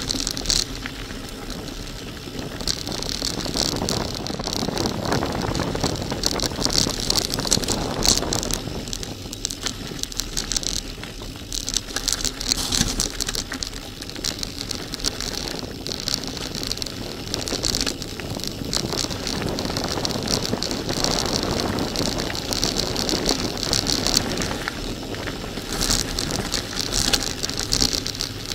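Bicycle tyres crunching over a loose gravel track, with the bike and its mounted camera rattling and many small clicks from stones. Wind buffets the camera's microphone.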